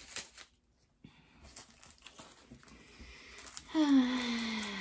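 Faint handling rustles of a plastic package, then, a little before the end, a woman's long wordless vocal sound that slides down in pitch, the loudest sound here.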